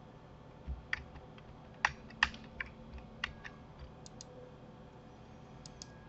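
Computer keyboard and mouse clicks: a scattered dozen or so separate, sharp key and button presses at an irregular pace, thickest in the first half.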